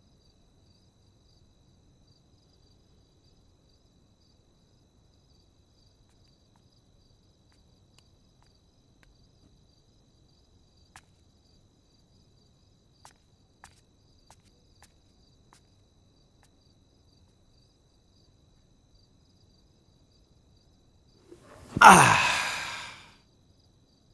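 Near silence, with faint steady cricket chirping and a few soft clicks. Near the end comes one loud sigh from a person, lasting about two seconds and falling in pitch.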